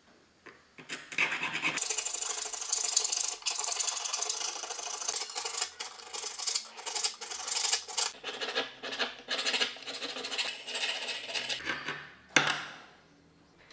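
Needle file rasping back and forth along the edge of a small metal pendant piece held against a wooden bench pin, in quick repeated strokes. About 12 seconds in there is a single sharp knock, the loudest sound, and the filing stops.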